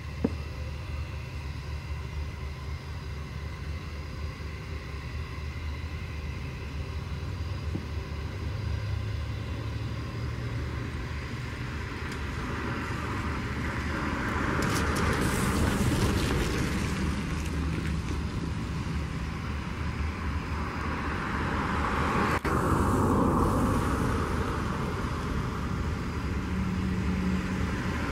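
Airbus A319's twin jet engines running at taxi power: a steady rumble and whine. The hiss swells louder about halfway through and again near the end as the jet approaches and turns.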